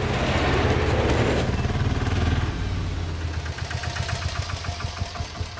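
Auto-rickshaw engine running as it pulls up, a steady low rumble at first that drops about halfway through to a quieter, even putter at idle.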